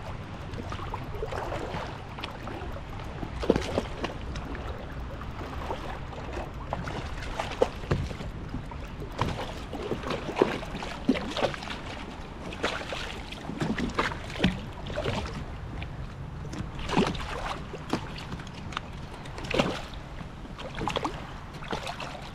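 A hooked jack crevalle splashing at the surface as it is brought alongside a kayak and grabbed, with irregular short splashes that come more often in the second half. Under them is a steady wash of wind and water.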